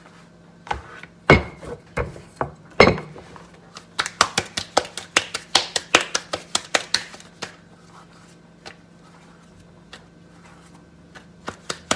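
Flour tortilla dough being worked by hand with a wooden rolling pin: a couple of loud knocks of the pin on the stone countertop, then a quick run of sharp taps and pats, about five a second, for a few seconds, and a short lull before the tapping starts again near the end.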